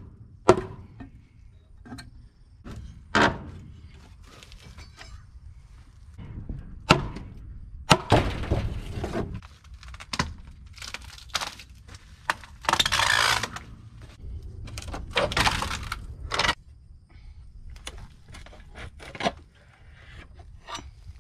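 Old weathered wooden boards being wrenched and pried off a manger frame with a pry bar: irregular knocks and sharp cracks of wood, with a few longer scraping stretches about eight, thirteen and fifteen seconds in.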